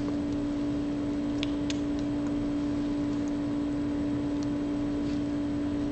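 Steady machine hum with one constant low tone and a few faint clicks about a second and a half in.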